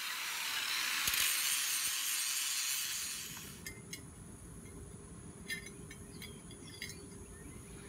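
Angle grinder running with a high, even hiss that stops about three seconds in. A few faint, sharp clinks follow.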